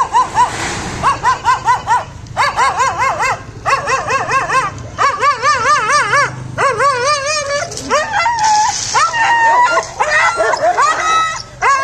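Dogs barking in a fast string of high yelps, about four a second. From about eight seconds in, the calls turn into longer, wavering whines and howls as a black Labrador and a female dog guarding her pups face off.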